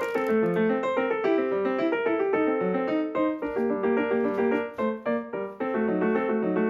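Background piano music: a lively run of many short notes.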